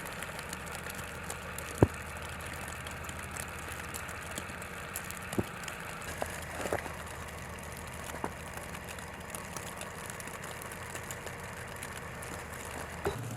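A steady low engine hum, as of a motor idling, with a few sharp clicks scattered through it.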